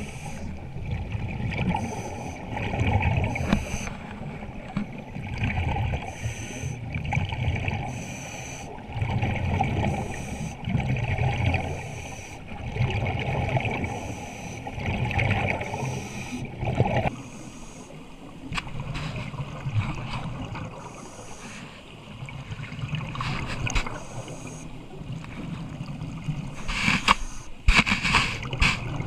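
Scuba diver breathing underwater through a regulator: bursts of exhaled bubbles every two to three seconds. The bubbling drops off after about seventeen seconds, and a few sharp clicks come near the end.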